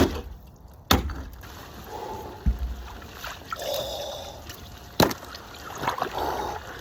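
Cold plunge water sloshing and trickling, with sharp knocks at the start, about a second in and about five seconds in, and a low thump midway.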